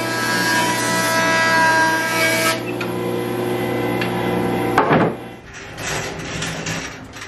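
A stationary woodworking power tool running and cutting a board. The cutting noise stops about two and a half seconds in while the motor keeps humming. A sharp knock of wood comes about five seconds in, and the sound is quieter after it.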